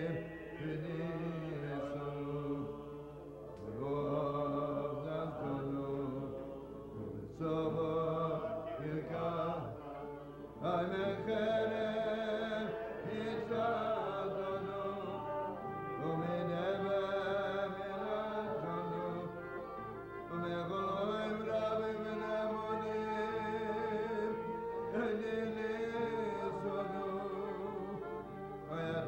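A man singing a slow, chant-like melody in long phrases, accompanied by guitar.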